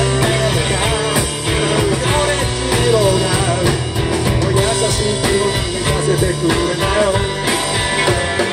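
Rock band playing live: electric guitars over bass and drum kit, with a lead melody line that bends up and down in pitch.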